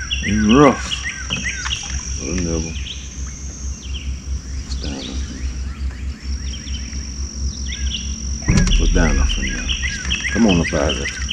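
Birds chirping in quick repeated notes over an insect's steady high buzz, which stops for about two seconds in the middle and then resumes. A low rumble runs underneath and swells about eight and a half seconds in.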